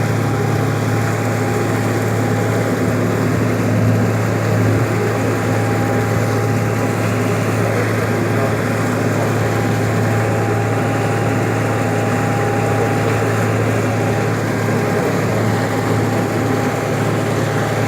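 Boat's motor running steadily at an even speed, a constant low drone with a steady whine above it and water noise.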